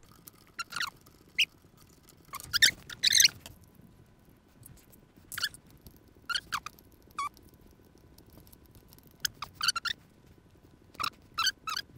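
A string of short, high squeaks and scrapes, a dozen or so spread irregularly, from parts and a screw being worked into the buffer tube and receiver of an M4-style airsoft replica.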